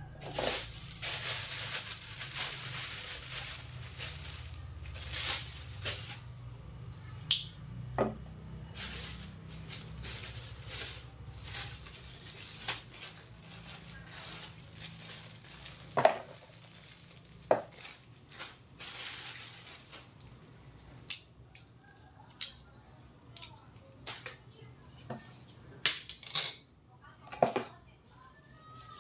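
Irregular kitchen handling noises as ingredients are picked by hand from a plastic tub and a woven basket: short rustles and scattered sharp clicks and knocks.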